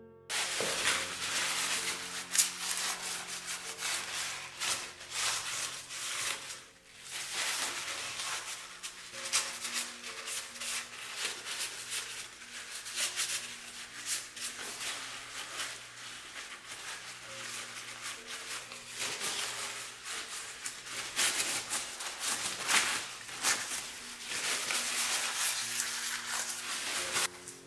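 A cloth wiping and rubbing over the metal of an engine block in repeated scrubbing strokes, with a short pause about a quarter of the way through. Soft background music plays underneath.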